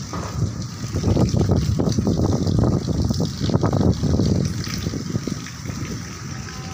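Heavy rain pouring and splashing, swelling louder for about three seconds in the middle and then easing.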